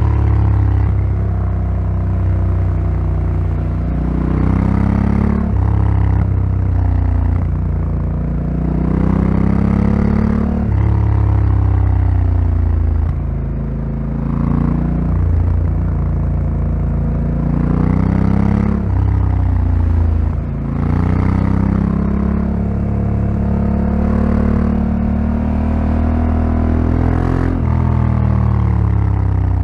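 Honda Africa Twin CRF1100L's parallel-twin engine under a rider, its note climbing and dropping again and again as the throttle is opened and closed through a run of bends.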